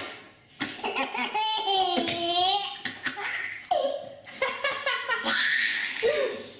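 Baby laughing hard in repeated bursts of giggles and belly laughs, set off by someone sneezing.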